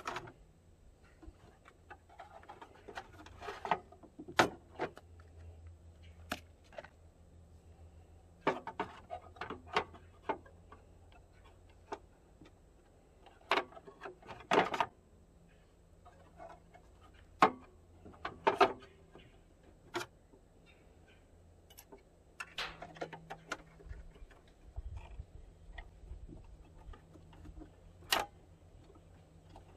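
Hands fitting a pleated air filter element and its bent-wire retainer clip onto a small generator's carburettor: irregular metal clicks and taps with short bursts of rustling handling noise.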